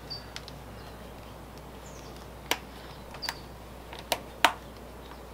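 Metal snap fasteners on a leather valet tray clicking about four times as its corners are pressed together, the snaps not staying closed. Faint bird chirps in the background.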